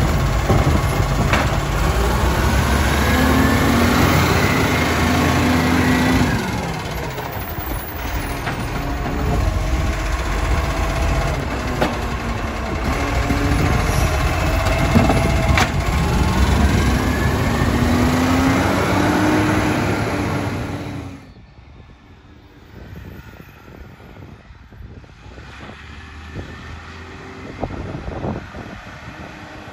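Side-loading garbage truck working its hydraulic bin-lifting arm: the diesel engine runs up to power the hydraulics, giving a rising whine twice as bins are lifted and tipped, with a few sharp knocks of the bins. About two-thirds through the sound drops sharply to a much quieter street, with the truck running in the distance.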